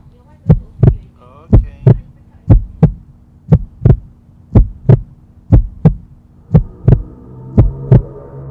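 Heartbeat sound effect: slow paired lub-dub thumps, about one beat a second, over a faint steady hum.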